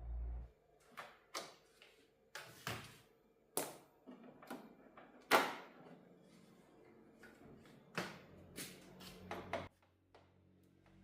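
Irregular knocks and clicks of hard objects being handled and set down, about a dozen in all, with the loudest a little after five seconds in.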